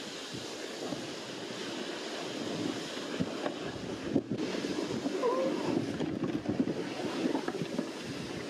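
Loaded plastic sled being towed over snow, its bottom scraping and hissing steadily, with the crunch of footsteps in snow.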